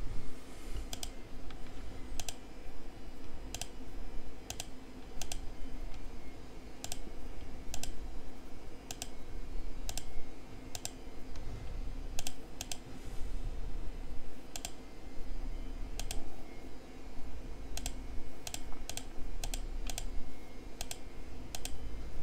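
Clicks of a computer keyboard and mouse, coming irregularly and often in quick pairs, over a low steady hum.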